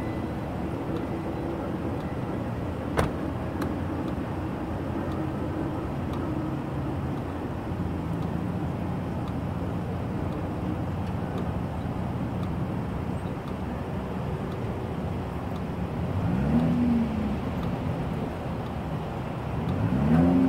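Volvo V90 T6's turbocharged and supercharged 2.0-litre four-cylinder engine idling at the exhaust, with a sharp click about three seconds in. Near the end it is blipped twice, the pitch rising and falling back each time.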